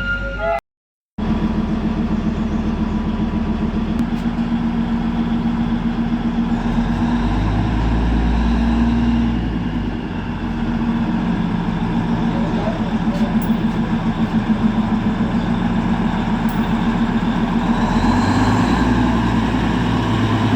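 An engine running steadily, a low hum with a fast even pulse, after a brief break in the sound about half a second in.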